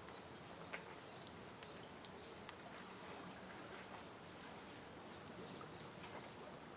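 Faint, calm woodland background with short, high-pitched bird calls repeating every second or two, and a few sharp ticks, the loudest a little under a second in.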